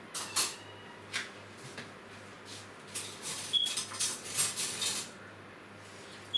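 Dishes and cutlery clinking and clattering as they are handled for washing up: a few knocks at first, then a busy run of clatters, one of them a short ringing clink.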